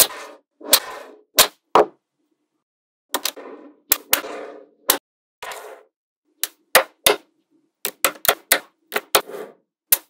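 Magnetic balls snapping together with sharp, irregularly spaced clicks as strips and panels of them are pressed into place, with short rattling between the clicks as the balls shift against each other. The clicks come in a quick cluster near the end.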